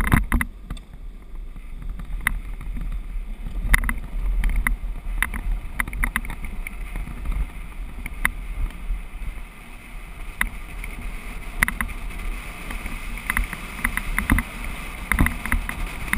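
Racing BIG Bobby-Car rolling fast downhill on asphalt: a steady low rumble from wind on the microphone and the rolling wheels, with frequent sharp clicks and rattles from the plastic car over the road surface. A hiss from the wheels grows louder after about thirteen seconds.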